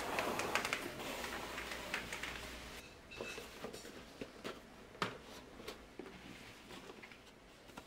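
Shrink-wrapped cardboard model kit boxes being handled and shifted on a wooden tabletop: rustling and light scrapes, louder in the first couple of seconds, then scattered clicks and one sharper knock about five seconds in.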